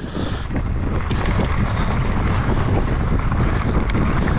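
Mountain bike descending a rough dirt and rock trail at speed: a steady rush of wind buffeting the microphone over tyre noise, with many quick rattles and knocks from the bike over the ground.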